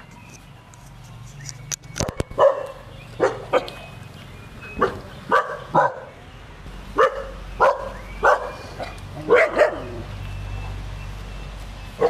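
Dogs in a kennel barking, a dozen or so short barks spread over the span, with a few sharp knocks about two seconds in.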